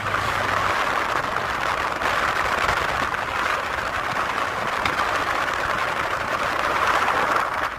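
Steady road and wind noise of a moving car.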